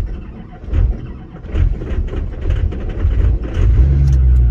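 Duramax 6.6 L V8 turbodiesel being cranked on a cold start, with a low surge about once a second. About three and a half seconds in it catches and settles into a steady run, heard from inside the cab.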